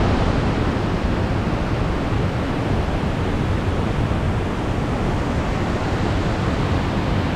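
Carrington Falls, a tall waterfall, rushing steadily: falling water and spray as one even, loud noise, strongest in the low range.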